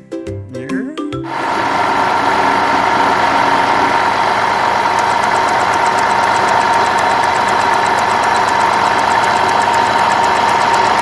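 Truck engine running steadily. It starts about a second in, and a fast, even ticking joins in about halfway through.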